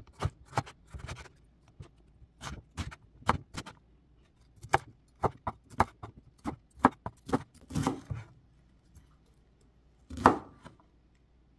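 Kitchen knife chopping on a wooden cutting board, first through carrot and then through broccoli. The blade knocks on the board in irregular runs of sharp taps with short pauses, and there is one harder strike about ten seconds in.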